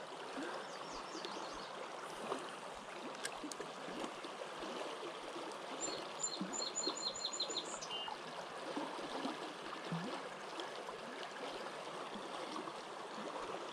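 River water running steadily over the stream bed. A bird calls a quick run of about seven high notes about six seconds in.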